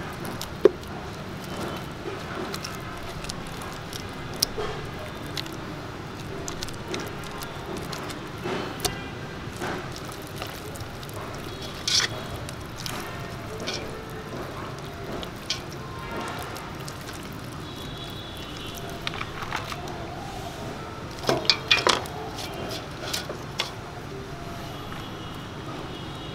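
Hands rubbing and squishing red paste into a raw bull vagina in a stainless steel pot, with scattered clicks and knocks against the pot. A sharp one comes just after the start and a loud cluster comes a little past the middle, over a steady background hum.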